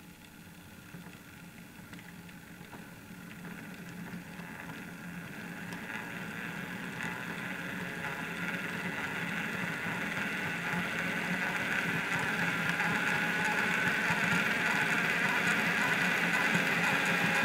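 Motor and gear drive of an HO-scale Ixion Models J class model steam locomotive running on a rolling road: a whirring, grinding mechanical noise that grows steadily louder. It is a noisy runner, which the owner puts down to the mechanism possibly needing more lubrication.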